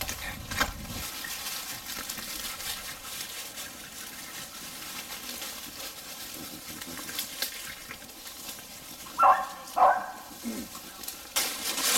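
A beagle barking twice in quick succession about nine seconds in, the loudest sounds here, over a steady rustle of dry grass and brush.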